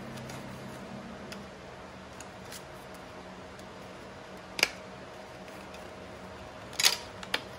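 Paper leaflets and the cardboard insert of a phone box being handled: a few sharp clicks and taps over a faint steady hum. The loudest click comes about four and a half seconds in, followed by a close pair near seven seconds.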